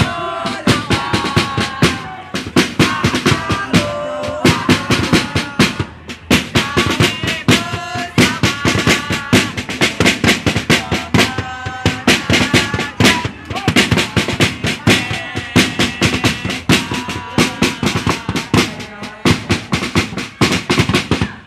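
Marching drums, a bass drum among them, beaten in a fast, steady rhythm, with a group of young men chanting along over the beat at several points.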